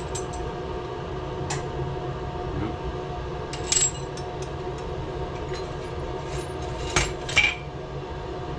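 Bench torch flame running with a steady roar, with four sharp clinks of glass and tools spread through it, the loudest near four and seven seconds in.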